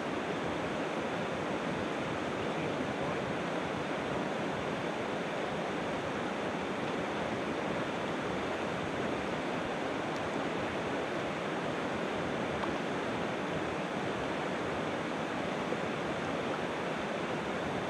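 A river running high, its water rushing with a steady, unbroken noise.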